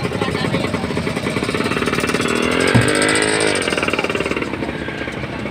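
An engine running with a fast, even pulsing beat, its pitch rising and then falling about halfway through, with a sharp click at the peak.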